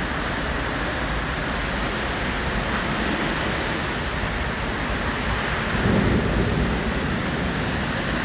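Hurricane-force wind blowing hard: a steady, jet-like rushing noise that swells louder about six seconds in.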